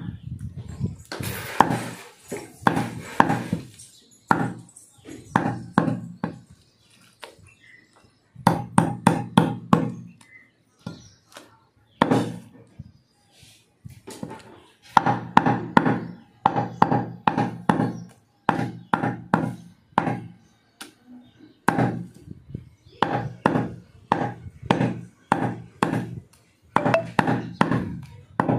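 Mutton being chopped with a blade, strikes coming in quick runs of several blows a second broken by short pauses.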